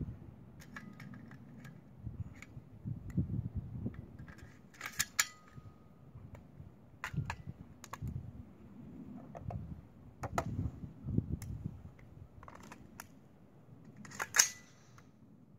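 Metallic clicks and clacks of a rifle being handled and loaded, scattered and irregular, some with a brief metal ring. The loudest, sharpest click comes near the end as the rifle is shouldered.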